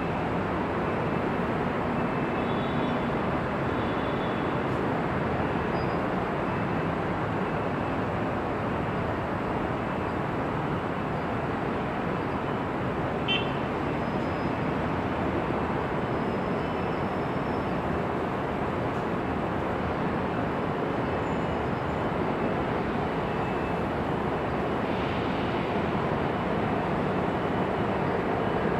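Dense freeway traffic passing continuously: a steady wash of tyre and engine noise, with one brief sharp high sound about halfway through.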